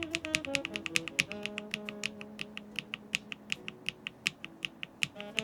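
Typing on a Keykobo Machinist mechanical keyboard fitted with Keygeek Pomkin all-POM linear switches: rapid keystrokes with a thocky sound and a slight scratch. Background music plays under the typing.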